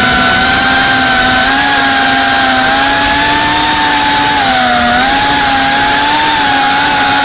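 Cinewhoop FPV drone's motors and ducted propellers whining loudly, heard from the onboard camera, the pitch wavering with the throttle and dipping briefly about four to five seconds in; a steady rush of air noise runs under it.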